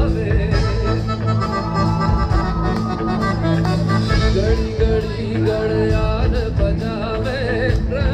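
Live music from a stage sound system, heard from within the crowd: a singer over sustained chords and a steady beat.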